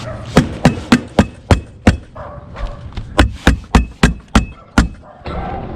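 Hammer blows at about three a second, in two runs of about six strikes with a short pause between: typical of nailing during a tile roof repair.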